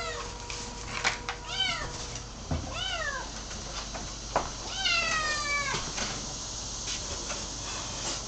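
Kitten meowing repeatedly: about four high meows that rise and then fall in pitch, the last one longer. A few short knocks come between them.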